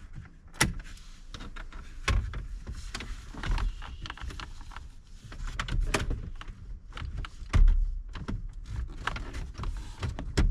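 Irregular clicks, knocks and rattles, as of parts being handled, with a few heavier thumps along the way.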